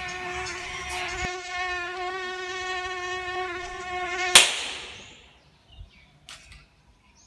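A mosquito's steady high whine, cut off about four seconds in by a single sharp hand clap that swats it. A couple of faint taps follow.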